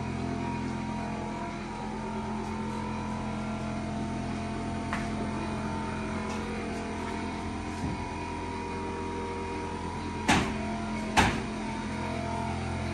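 A steady mechanical hum with several fixed tones, unchanging throughout, broken near the end by two sharp knocks about a second apart.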